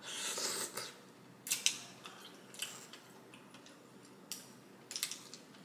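A short slurp as mussel meat is sucked off the shell, then scattered sharp clicks of mussel shells and a spoon against a glass bowl.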